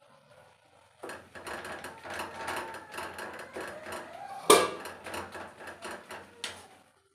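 Wooden spatula scraping and knocking against a metal kadai while stirring potato and cauliflower, starting about a second in as a quick run of scrapes and clicks, with one sharp knock about halfway through.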